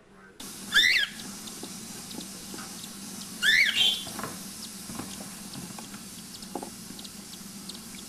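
Cockatiel calls: two loud whistled calls that warble up and down in pitch, about a second in and again about three and a half seconds in, over a steady hiss.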